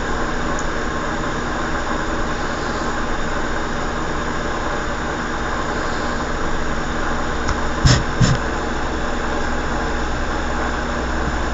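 Steady hum and hiss of room noise, with two brief knocks about eight seconds in.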